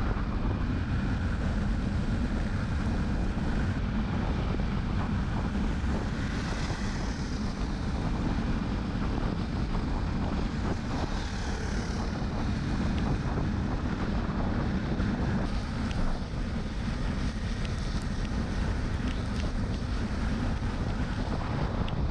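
Motorcycle riding at road speed: steady wind noise on the microphone over the engine's drone and tyre noise.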